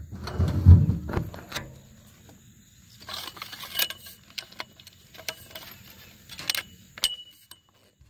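Handling noise from a covered phone: a heavy bump and rubbing against the microphone in the first second, then scattered small clicks and knocks.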